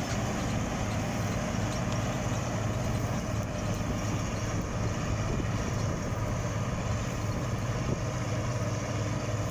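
Bizon combine harvester running steadily while harvesting grain: a constant diesel engine drone together with the hum of its threshing machinery.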